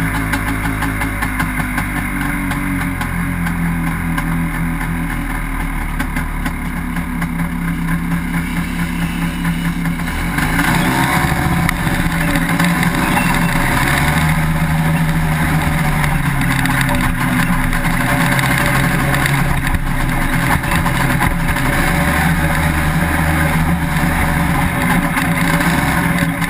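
Small sand rail's engine idling, then pulling away about ten seconds in and running steadily under load across the sand, with wind hiss on the onboard microphone once moving.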